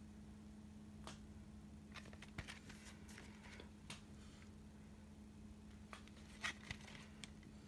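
Faint handling noise of a CD case turned over in the hand: scattered soft clicks and rustles of the packaging, the loudest a little over 6 s in, over a steady low hum.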